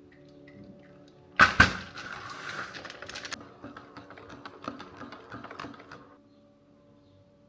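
Small hard objects clinking and clattering: two sharp knocks about a second and a half in, a brief hiss, then a run of light clicks that stops about six seconds in, over a faint steady hum.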